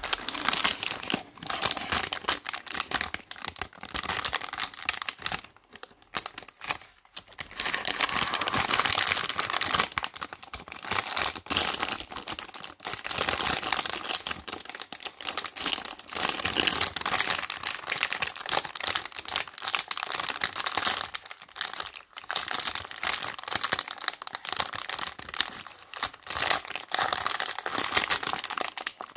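Crinkly plastic bag of Haribo Trekdrop licorice crinkling and crackling as it is handled, torn open and the licorice strips pulled out, with short pauses between bursts of handling.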